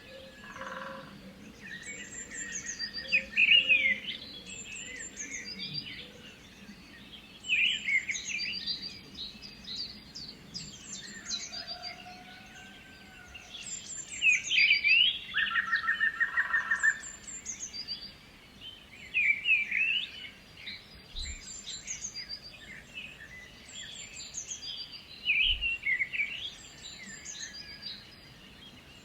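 Several birds singing. One repeats a short, bright, quick song phrase every four to six seconds, and other birds call and trill between the phrases.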